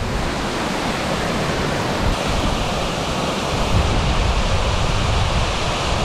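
Waterfall pouring close by, with the creek below rushing over rocks: a loud, steady rushing of water.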